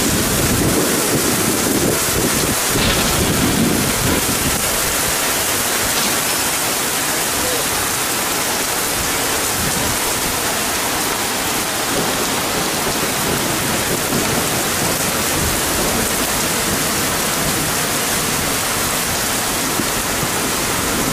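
Heavy rain pouring steadily during a thunderstorm.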